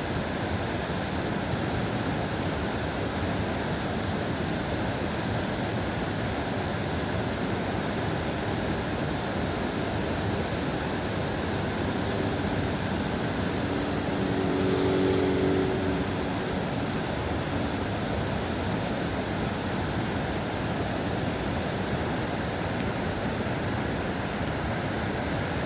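Waterfall pouring steadily, an even rush of falling water. About halfway through, a brief steady tone sounds over it for a second or two.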